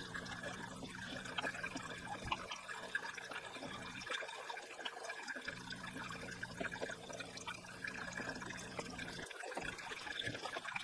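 Water trickling as an electric water heater drains through a hose from its drain valve.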